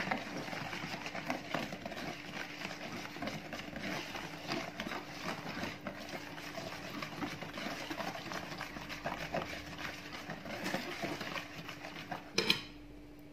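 Wire whisk beating flour into a thin batter in a plastic bowl: a continuous quick scraping and clicking of the wires against the bowl, with one louder knock near the end.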